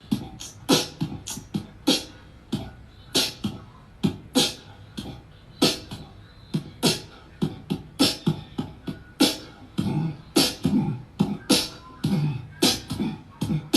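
Music built on a sharp percussive beat of beatbox-style hits and low thumps, one to three a second throughout.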